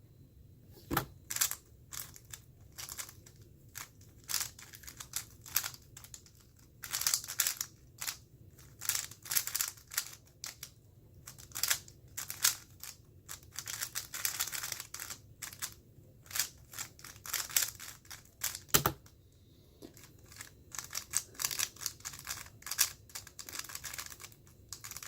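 Moyu Weilong GTS2M 3x3 speedcube being turned fast in a solve: quick runs of plastic clicking and clacking from the layers, broken by short pauses. A single sharper knock about a second in and another about eighteen seconds later mark the start and end of the solve.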